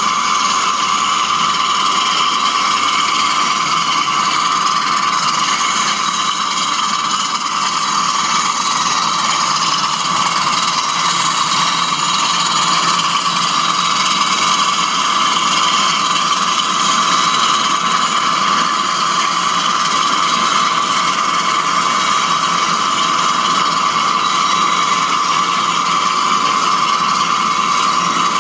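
Model train running steadily: a pair of OO-gauge class 20 diesel locomotives hauling Accurascale HAA merry-go-round hopper wagons, a continuous hum of locomotive sound and wheels on the track.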